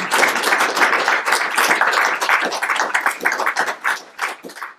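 Audience applauding, a dense run of clapping that thins to a few scattered claps and fades near the end.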